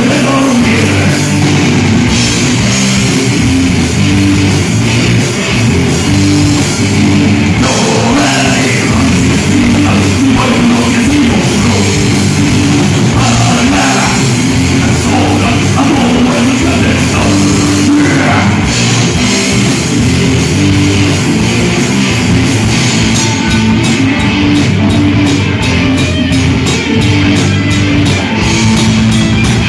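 A rock band playing live and loud: distorted electric guitars over a pounding drum kit, steady throughout.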